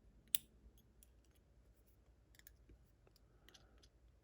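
Faint light clicks of tweezers picking over the small gin pins taken out of a Ruko 600 lock, with one sharper click about a third of a second in.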